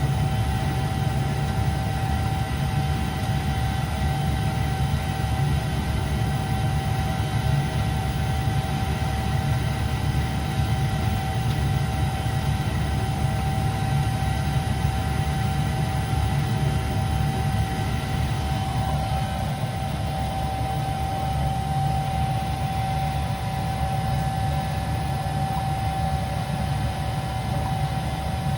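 Lennox furnace running with a steady whirring noise: a low rumble under a constant high whining tone. The rumble eases a little about two-thirds of the way through while the whine carries on.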